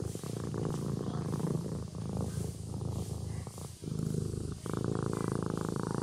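Kitten purring steadily while asleep, with a short break a little past the middle.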